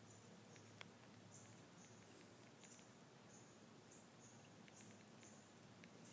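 Near silence, with faint short high chirps repeating about twice a second and a few faint clicks.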